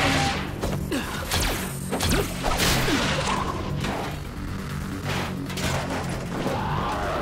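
Action-cartoon sound effects over tense background music: an explosion, then a string of crashes, impacts and whooshes.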